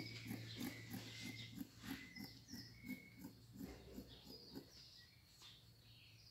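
Scissors cutting through fabric: a quick, faint run of soft snips, about four a second, that stops about five seconds in.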